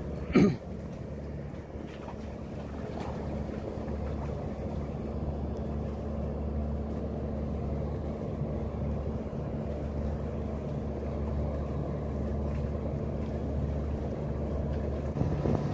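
Steady low engine drone of a large car-carrier ship passing close by, several low hum tones held level throughout. A brief sharp knock about half a second in is the loudest sound.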